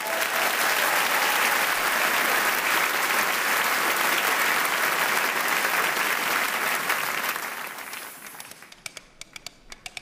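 A theatre audience applauding, which dies away after about eight seconds. Near the end a rapid run of sharp clip-clop clicks starts: coconut halves knocked together to mimic a horse's hooves.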